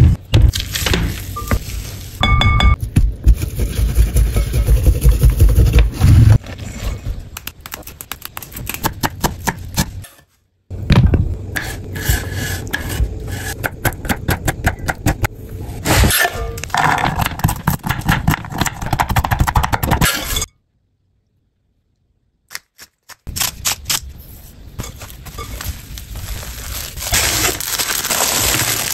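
Close-miked kitchen preparation in several short cut-together clips: rapid runs of taps, scraping and clinking from utensils and cookware. A silent gap of about three seconds comes two-thirds of the way in.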